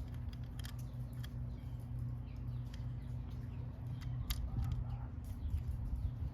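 Scattered light clicks and taps of small metal parts being handled, over a steady low hum.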